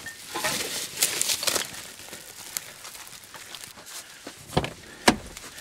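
Crinkling and rustling of litter being handled, with scattered small clicks and two sharper knocks near the end.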